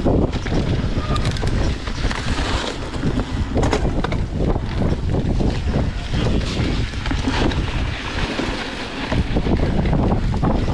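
Wind rushing over the camera microphone of a mountain bike riding a dirt singletrack, with tyres rolling over dirt and rock and frequent short knocks and rattles from the bike on the rough ground.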